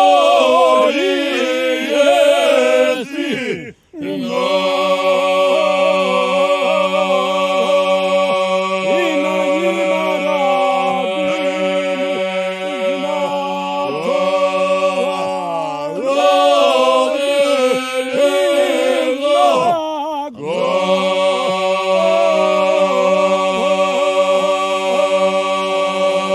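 A group of men singing a folk song a cappella. One voice winds and ornaments a melody above a long, steady held note sung by the others. The singing breaks off for a moment about four seconds in and dips briefly twice more later on.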